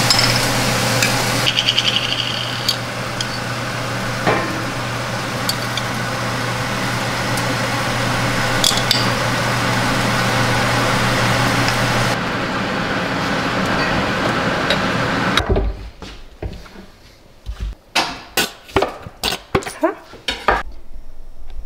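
Kitchenware handled against a steady rushing background noise: a ladle and spoons clinking now and then on ceramic bowls. About fifteen seconds in, the background noise cuts off and a quick run of clinks and knocks follows as plates and cutlery are set down on a stone countertop.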